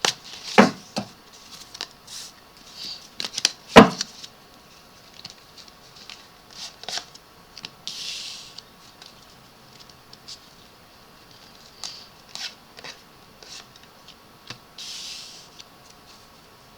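Tarot cards being handled and laid out on a table: scattered sharp snaps and taps, the loudest about four seconds in, with a few soft sliding rustles of card on card.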